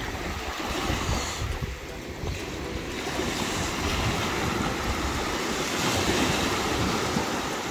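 Small surf waves breaking and washing up a sandy beach, a steady rushing wash that swells in the middle, with wind buffeting the microphone.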